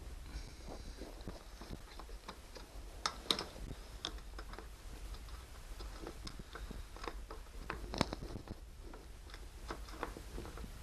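Irregular small clicks and taps of plastic trim parts and screws being handled and fitted by hand, with two sharper clicks about three seconds and eight seconds in, over a steady low hum.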